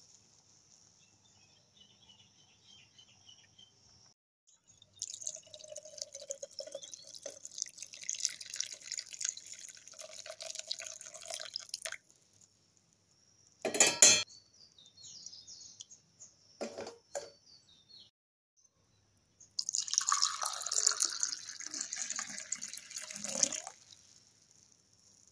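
Hot milk tea poured in a stream into a plastic jug for about seven seconds, then a loud clank and two lighter knocks, then tea poured into a glass cup for about four seconds.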